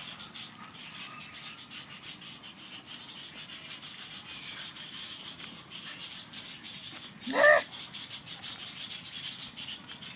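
A steady, high chirring of insects, with one short, loud, rising squeal from an animal about seven seconds in.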